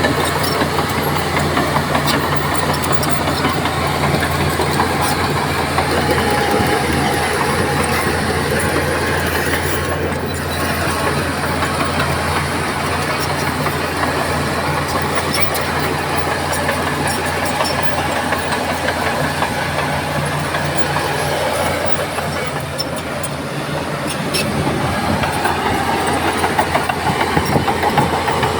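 Crawler bulldozer's diesel engine running steadily under load, with the rattle and clank of its steel tracks on top; it grows a little louder near the end.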